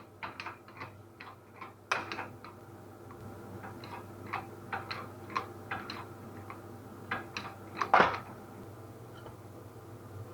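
Series of sharp metallic clicks and clinks from hand tools working on a car's removed electric power-steering column, with one louder knock about eight seconds in.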